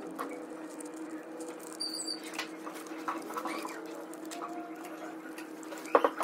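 Enamelled copper magnet wire rustling, scraping and squeaking as coils are worked by hand into the slots of an electric motor's stator, over a steady low hum. A sharp knock near the end.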